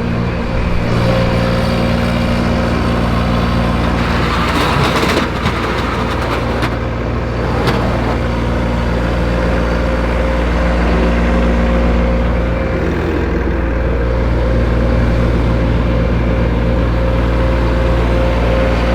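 A vehicle engine running steadily while driven, with an even low hum and a stretch of louder rushing noise about four to five seconds in.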